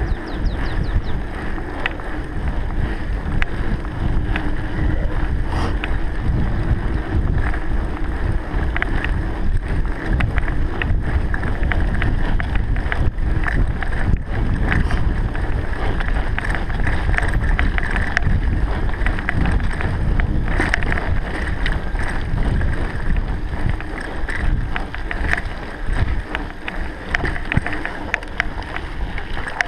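Wind buffeting the microphone with a steady low rumble, broken by frequent small clicks and rattles.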